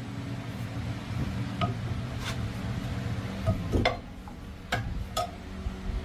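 Metal parts being handled and knocked together, about six sharp clinks spread irregularly over a low steady hum.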